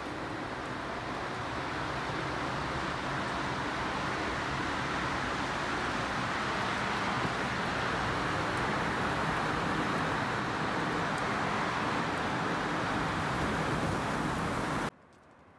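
Steady rushing noise coming in through an open door onto deep snow, cutting off abruptly near the end.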